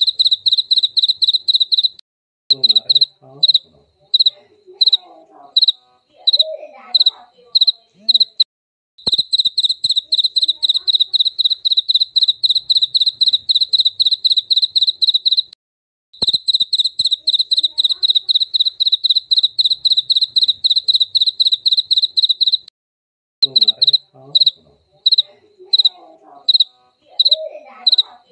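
Jaliteng cricket singing: a high, pulsed chirping song that switches between long fast trills and slower runs of separate chirps, broken by a few short pauses.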